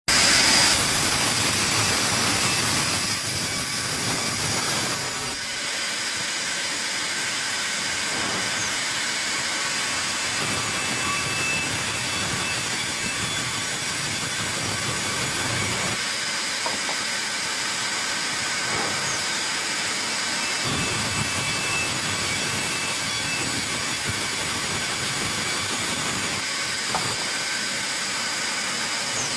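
Sawmill running with a steady hissing machine noise. It is loudest and brightest for the first few seconds, then drops to a steady, slightly lower level.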